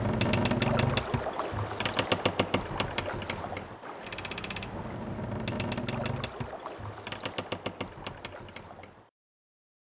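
Mechanical clattering: rapid clicks over a low hum, swelling in a pattern that repeats about every three seconds, then cutting off suddenly about nine seconds in.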